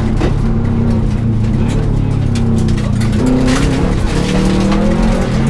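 Subaru Impreza GT rally car's turbocharged flat-four engine heard from inside the cabin under hard acceleration, the revs dropping and climbing again with quick gear changes. Tyre and road noise runs underneath, with many short knocks and rattles from the car on the rough road.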